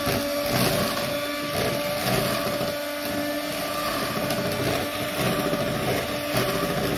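Electric hand mixer running with a steady motor whine, its twin beaters whisking sponge-cake batter of beaten eggs and sugar in a plastic bowl.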